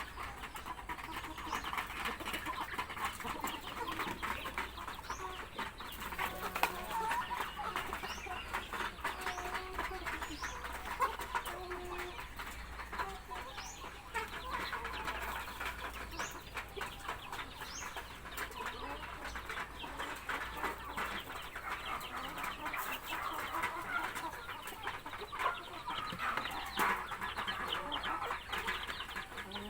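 A flock of chickens clucking and calling continuously, with many small clicks, at feeding time.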